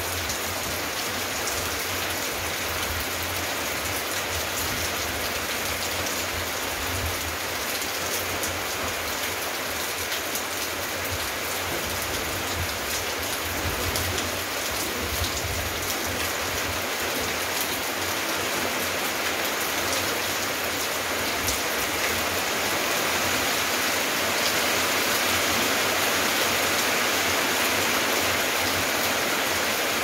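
Steady rain falling on paving and garden leaves, a dense even patter that grows a little louder about two-thirds of the way through.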